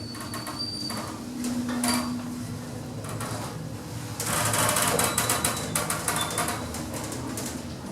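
Passenger lift in use: a short high beep near the start, a brief low hum, then about two seconds of louder rattling noise from about four seconds in.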